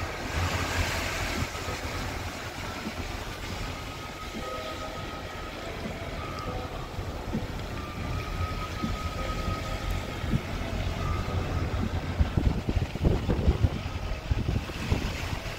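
Car driving: a steady low road-and-engine rumble, growing louder and uneven near the end.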